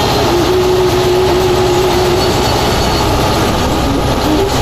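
Tractor-driven stationary thresher running steadily as canola stalks are fed into it, its drum turned by the tractor's PTO shaft. The engine and machine make a loud, even noise with a mid-pitched tone that wavers slightly.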